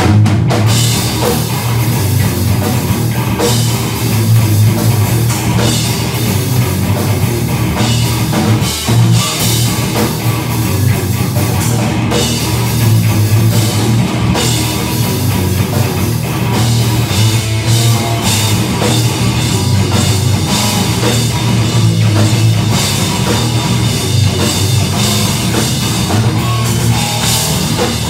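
Live heavy metal band playing loudly: distorted electric guitar, bass guitar and drum kit, without a break.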